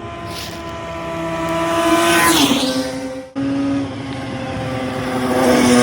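Yamaha TZR250 3MA two-stroke twin running at high revs as the bike rides past. It grows louder, then drops in pitch as it passes about two and a half seconds in. It breaks off abruptly a little past three seconds, then runs on steadily at a lower pitch.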